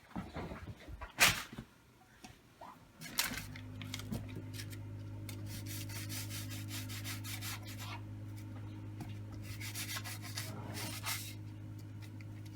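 A knife scraping and cutting through dough on a cutting board, in short rubbing strokes. About three seconds in, a steady low electrical hum starts up under it and keeps going.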